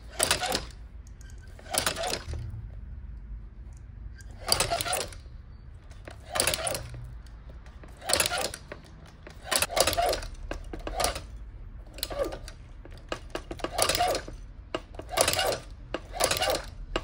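Cobbler's cylinder-arm shoe-patcher sewing machine stitching a football boot, turned slowly by its wheel. Each stitch is a short metallic clatter of needle bar and feed, about one every second or two at uneven spacing.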